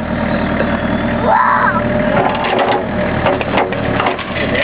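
Backhoe's diesel engine running steadily. A brief voice-like call comes about a second in, and a run of clicks and knocks follows in the second half.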